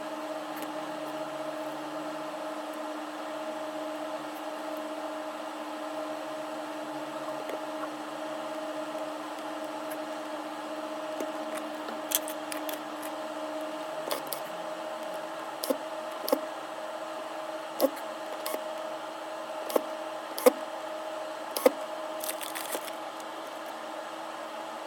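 A steady electrical hum on two fixed tones runs throughout. From about halfway in, a dozen or so short, sharp clicks and taps come at irregular intervals, typical of small tools and parts being handled during phone repair.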